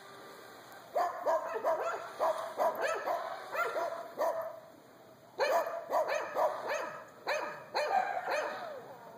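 An animal calling over and over in short, rapid calls, about three a second, in two runs with a brief pause around the middle.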